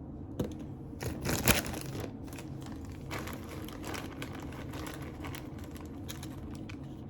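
Crinkling and rustling of food and packaging being handled while tacos are assembled, with a cluster of louder clicks and crackles about one to two seconds in, then scattered lighter ticks.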